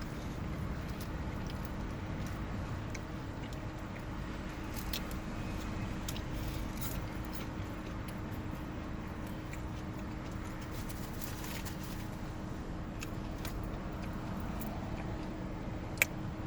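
A person chewing Chinese takeout food, with soft mouth sounds and faint scattered clicks over a steady low hum. A single sharp click comes near the end.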